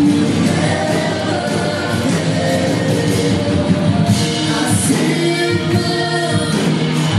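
Contemporary worship song: voices singing together over sustained musical backing.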